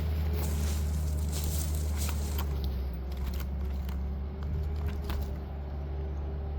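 Stihl MS500i fuel-injected two-stroke chainsaw idling steadily, with a few faint crackles and clicks over it.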